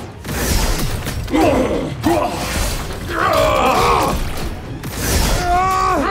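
Animated robot-battle sound effects, with mechanical clanking and energy-blast hits, over background music. Pitched sounds that bend up and down come about a second and a half in, again around three to four seconds, and near the end.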